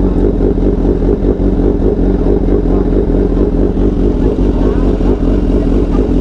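BMW S1000XR inline-four engine running steadily at an even pitch through its full exhaust system.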